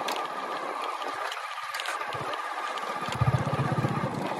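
Steady open-air background noise with a faint high whine; about three seconds in, a small engine's rapid low pulsing comes in close by and keeps running.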